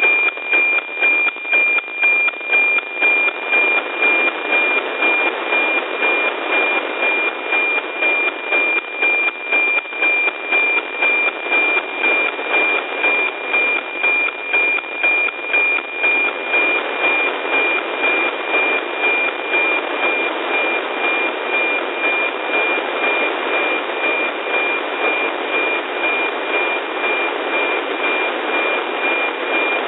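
NOAA 15 weather satellite's APT image signal, received with an RTL-SDR and demodulated in FM: a steady 2,400 Hz tone over static hiss, ticking twice a second with the line-sync pulses. In the second half the ticking grows fainter under the hiss as the signal weakens.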